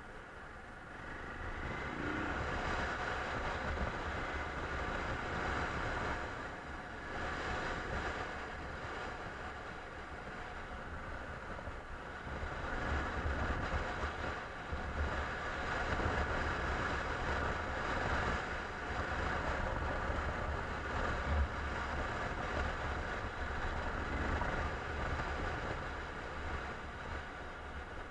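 1999 BMW F650's single-cylinder engine running steadily while the motorcycle is ridden along a dirt road, with wind rumbling on the microphone. It grows louder about two seconds in.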